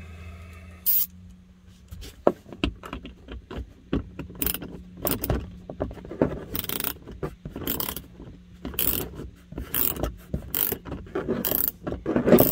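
Small hand ratchet clicking in short, irregular strokes as it backs out a tight dash speaker screw.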